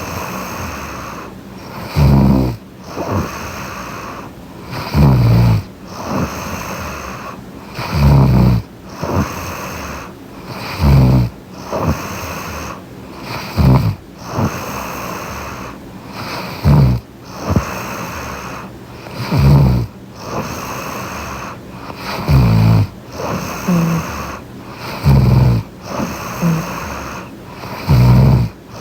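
A young woman snoring in her sleep close to the microphone: a short, low snore about every three seconds, with a softer breath between the snores.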